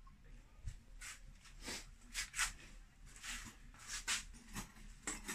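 Faint, irregular short scrapes and light taps, a dozen or so, of hands working at something on a bench.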